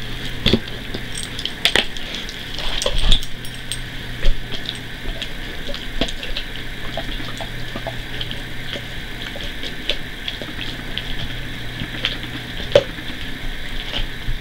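German shepherd gnawing on a rawhide chew: irregular wet clicks and crunches, over a steady low hum.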